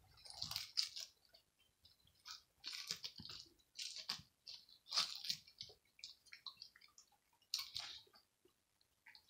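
A dog chewing seaweed, in several short bouts of clicky chewing with pauses between.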